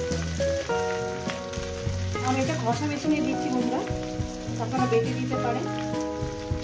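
Vegetables sizzling in oil in a steel wok over background music of steady held notes. Fresh ginger is being rubbed on a plastic grater over the pan.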